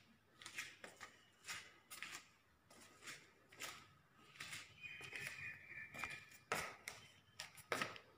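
Faint scattered rustles and clicks, about two or three a second, with a thin high steady tone for a second or so in the middle.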